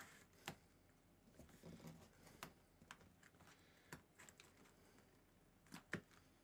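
Faint, scattered clicks and scratches of a kitten's claws on cardboard as it shifts about inside a box, with a slightly louder pair of clicks near the end.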